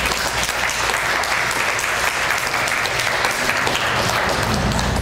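Audience applauding in a lecture hall, a dense steady clapping that thins out near the end.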